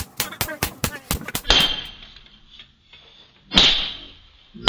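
Hand hammer striking a hot steel knife blade on an anvil: a quick run of light blows, then heavier strikes about a second and a half in, about three and a half seconds in and at the end, each leaving a high metallic ring that fades.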